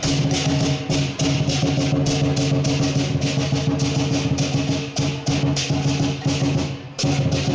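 Music with drums and percussion: a fast, even beat of strikes over held low notes.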